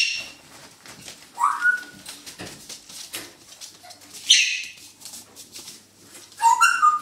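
Poodle puppies vocalising in play: a few short high-pitched yips and squeaks, with short rising squeals about a second and a half in and again near the end, over light scratching and scuffling as one puppy wrestles a plush toy.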